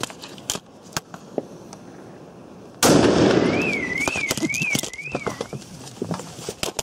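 A Gorilla Bomb banger firecracker goes off with a single loud bang about three seconds in, echoing away over a second or so. Right after it a car alarm sets off, warbling up and down about twice a second for a couple of seconds.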